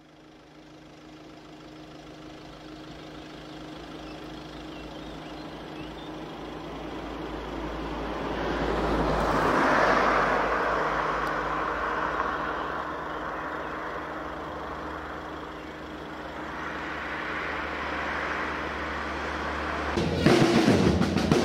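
A rushing noise with a low steady hum builds up and swells to a peak about halfway through. Near the end a marching band's snare drums strike up suddenly and loudly, beating a rapid rhythm.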